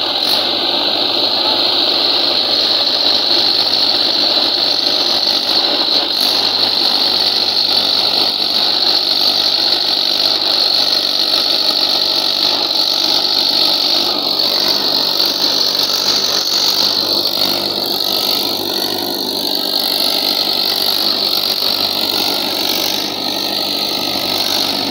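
Mahindra tractor's diesel engine running steadily under heavy load, pulling a sand-laden trolley through deep, soft sand.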